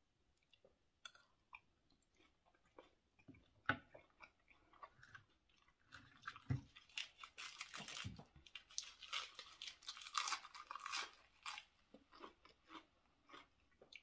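Close-up mouth sounds of chewing and crunching a spicy raw seafood salad with fresh raw vegetables: scattered wet clicks with a single sharp knock about four seconds in, then dense crunching from about six to eleven seconds in, the loudest part, before it thins back to scattered chewing.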